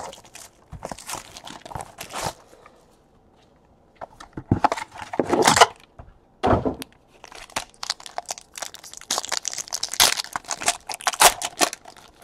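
Handling of a trading-card box and the plastic wrapper of the card pack inside it: rustling, tearing and crinkling in irregular bursts, densest and most crackly near the end.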